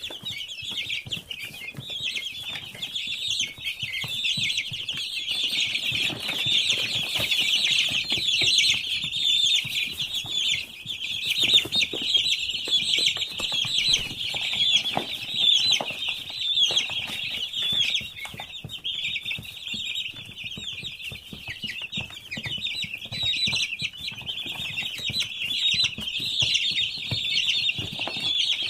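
A large flock of week-old broiler chicks peeping continuously, many high chirps overlapping into one dense chorus, with scattered small clicks and knocks among them.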